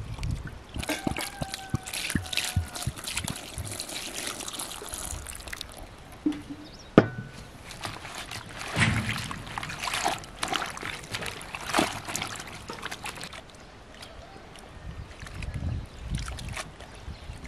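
Water sloshing and trickling in a plastic basin as sorrel leaves are washed by hand, swished and squeezed in the water. A single sharp knock about seven seconds in.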